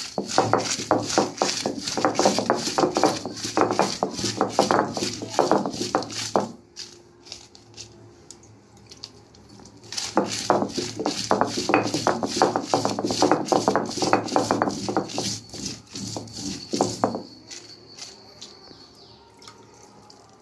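Heavy stone roller pounding dried red chillies on a flat stone grinding slab (ammi): rapid repeated stone-on-stone knocks, in two spells of about six seconds each, with a quieter pause between them and near the end.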